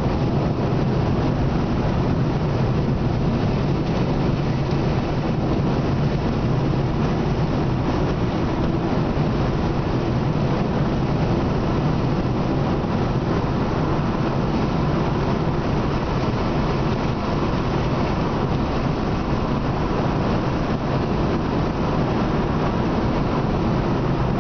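Steady drone of a car driving on an asphalt road, engine and tyre noise heard from inside the cabin, with no changes.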